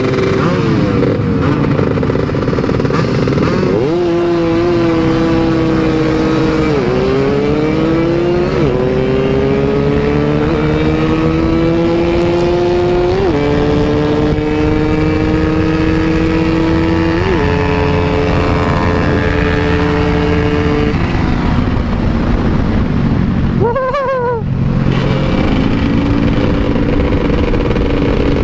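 Motorcycle engine pulling under load while riding, over a steady rushing noise. Its pitch climbs slowly, then drops back or steps several times, about every four seconds, as at gear changes.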